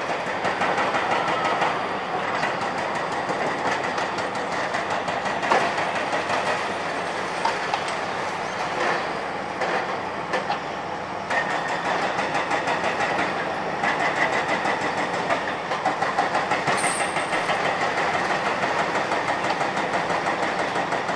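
Hydraulic demolition excavator breaking up a reinforced-concrete building: engine running under a dense clatter and crunch of concrete with many sharp knocks. From about halfway it turns into a fast, steady rapping.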